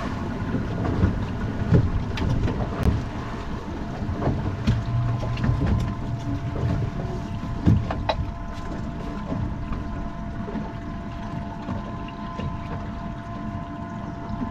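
Twin outboard motors idling on a fiberglass center-console boat, a steady low rumble with a faint steady whine, mixed with wind buffeting the microphone. Scattered light knocks come and go.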